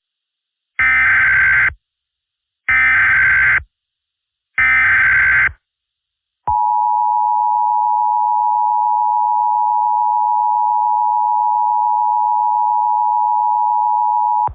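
Emergency Alert System SAME header: three identical bursts of digital data about a second each, evenly spaced. About six and a half seconds in, the steady two-tone EAS attention signal starts and holds for about eight seconds, announcing the alert message.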